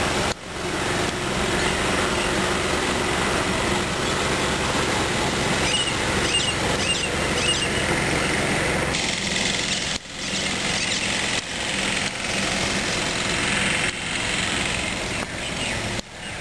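An engine running steadily, dipping sharply in level for a moment twice.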